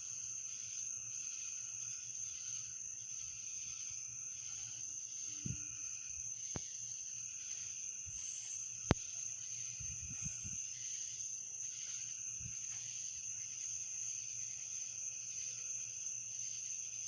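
Night chorus of crickets: a steady high-pitched trill, with other insects calling beneath it in a slow pulse about once a second. A single sharp click about nine seconds in is the loudest moment.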